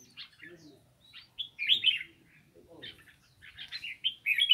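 Small caged songbirds chirping in short, scattered bursts, with a denser cluster of chirps about a second and a half in and again near the end.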